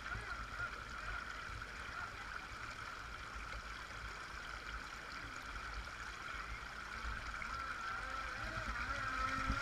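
Shallow stream rushing over stones, with the steady high whine of a radio-controlled jet boat's motor over it. The whine wavers in pitch and grows louder over the last couple of seconds as the boat comes closer.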